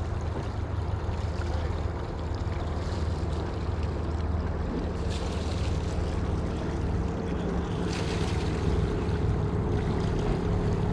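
Motorboat engine running with a steady low drone as the boat passes close by, with some wind noise on the microphone.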